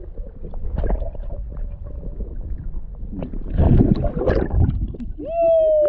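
Wind rumbling on the microphone in a fishing boat, with knocks and handling noise and a louder rustling burst about midway. Near the end a man lets out one long drawn-out shout that falls slowly in pitch.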